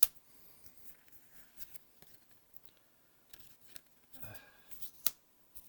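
Magic: The Gathering trading cards being handled and flipped: a sharp snap right at the start and another about five seconds in, with light sliding and rustling of cards between.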